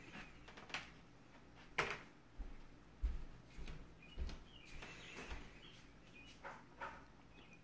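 Faint, scattered light taps and knocks of a toddler eating from a bowl with chopsticks, several over a few seconds, with a few brief high-pitched squeaks from the child.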